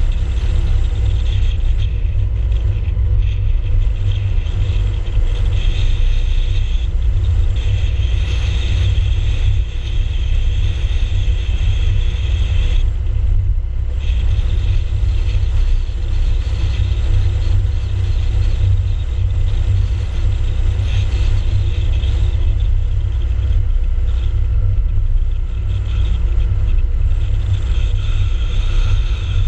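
A car driving along an open road: a deep, steady rumble of road and wind noise with a faint high whine over it.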